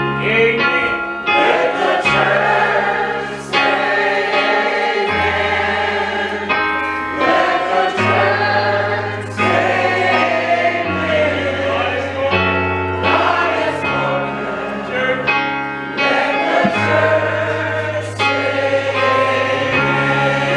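Gospel choir singing a song over keyboard accompaniment, its held bass notes changing every second or two.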